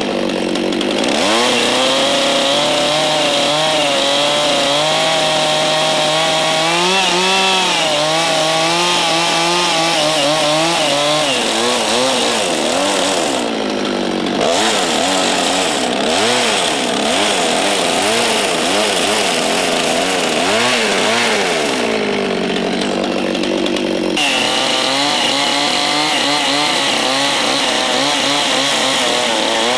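Two-stroke chainsaw running at speed with its chain cutting into a log. The engine speed drops and climbs back again several times as the bar works through the notch cut.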